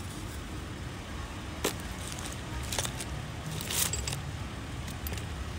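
Brief rustles and light clicks of items being handled inside a soft fabric tool bag, three short ones about a second apart near the middle, over a steady low rumble.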